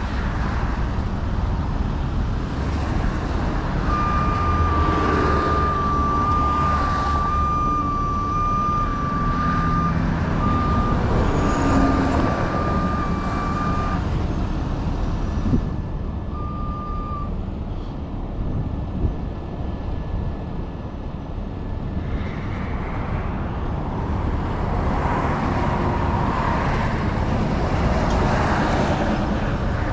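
Heavy diesel truck engine running steadily at a worksite. A steady high tone sounds over it for about ten seconds, starting a few seconds in, and once more briefly afterwards.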